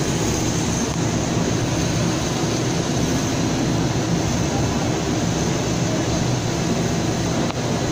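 Polyethylene foam sheet extrusion line running: a steady, loud machine drone with a constant high hiss, unchanging throughout.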